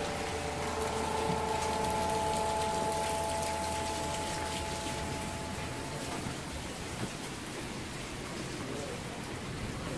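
Steady rain falling outside, an even hiss. A faint steady hum of a few notes stops about six seconds in.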